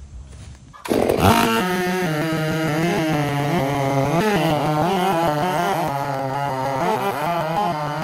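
Chainsaw running at high speed, cutting a tulip poplar stump flush with the ground, its pitch wavering as the load changes. It comes in suddenly about a second in.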